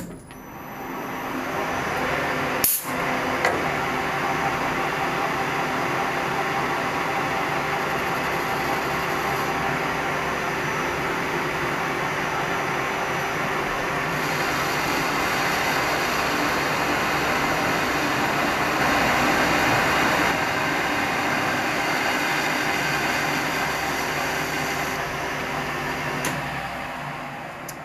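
Metal lathe spinning up, running steadily while a cutting tool turns down a steel bar, then running down near the end. There is a single sharp click a little under three seconds in.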